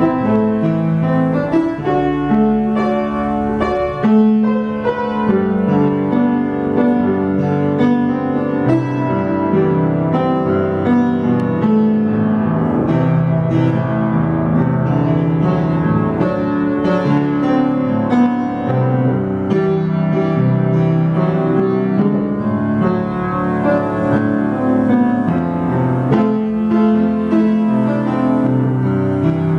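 Piano playing a piece, melody over chords, with notes held and ringing into one another.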